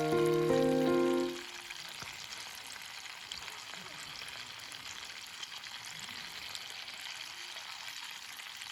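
Background music stops about a second in. It gives way to a steady sizzling hiss with small crackles, food frying in a pan.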